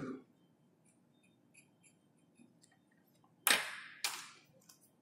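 Two sharp clicks about half a second apart, a little past halfway through, from a pen being handled; before them, near silence.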